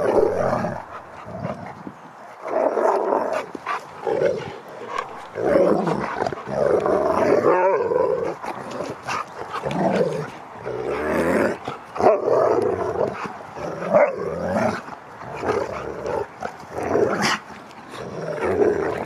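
Two huskies play-fighting and vocalising, in repeated bouts every second or two.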